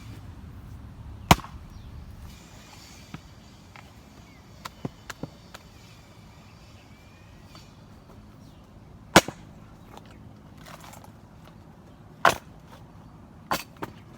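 A 4.5 lb Marathon axe striking wet acacia wood: four sharp, widely spaced blows, one about a second in, one about nine seconds in and two close together near the end, with lighter knocks between them.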